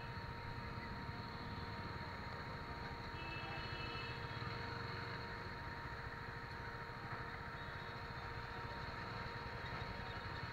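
Motorcycle riding in city traffic, heard from a camera mounted on the bike: a steady rumble of engine and road noise with a faint steady whine over it.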